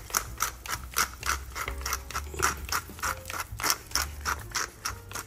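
Hand pepper mill being twisted, grinding black pepper in a steady rhythm of about three grinds a second.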